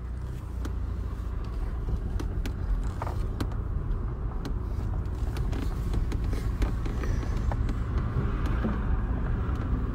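Car driving, heard from inside the cabin: a steady low engine and road rumble with a few faint ticks.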